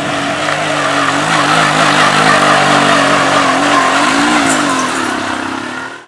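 Engine of a two-wheel tractor running hard over a dirt race track, its pitch wavering up and down as the throttle changes. The sound cuts off suddenly at the end.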